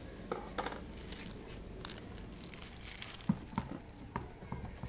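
Thin plastic packaging being snipped with scissors and torn open, crinkling and rustling in short bursts. Near the end there are a few soft thumps.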